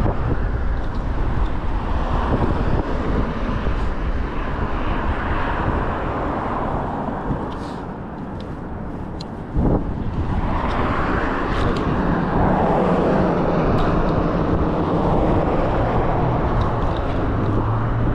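Wind buffeting the microphone, with steady road rumble, as on a moving e-bike ride. The rush eases a little past the middle, then a single knock brings it back up to full strength.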